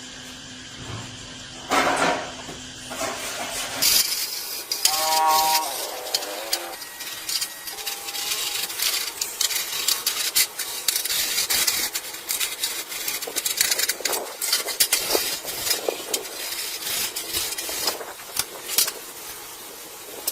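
Repair-work noise from hand tools on metal: a dense run of scrapes and clicks that starts about four seconds in, with a brief pitched squeal about five seconds in.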